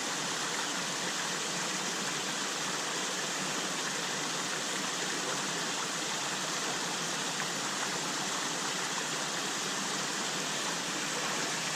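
Water of a small mountain stream running steadily.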